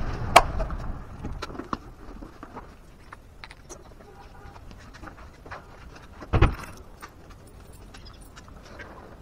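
Handling noise from a hand-held camera being carried: scattered light clicks and clinks, with a sharp knock about half a second in and a heavier thump about six and a half seconds in.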